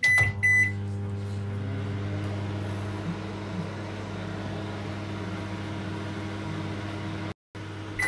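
Microwave oven keypad beeping twice as the start button is pressed, then the oven running with a steady low hum. The sound cuts out for a moment near the end.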